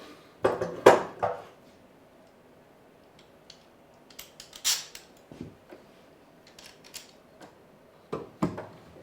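A metal clamp being handled and fitted to a wooden leg: a cluster of clattering knocks about a second in, scattered sharp metallic clicks through the middle, and two knocks near the end.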